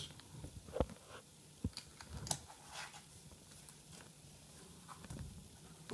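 A few scattered clicks and light knocks as Bluetooth keyboards are handled, the loudest about a second in.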